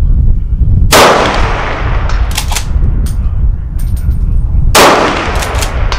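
Two shots from a .308 Savage Impulse rifle fitted with a Rugged Rx muzzle device, about four seconds apart, each followed by a rolling echo and a few fainter cracks.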